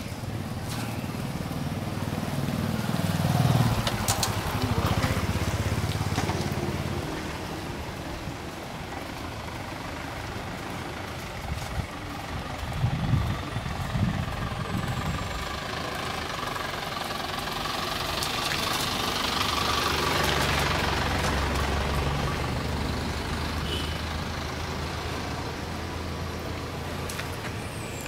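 Street traffic: motor vehicle engines running and passing, swelling twice as heavier vehicles go by, with a few sharp knocks in the middle.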